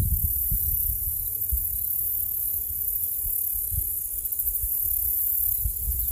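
Wind buffeting the microphone outdoors: a low rumble that rises and falls unevenly, with a faint steady hiss over it.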